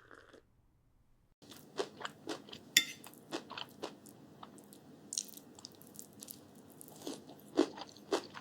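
Someone chewing and biting crunchy food close to the microphone: irregular crunches that start about a second and a half in, over a faint steady background.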